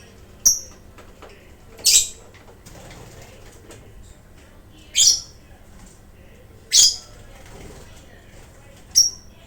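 Lovebirds giving short, shrill, high-pitched calls, five of them spaced a couple of seconds apart.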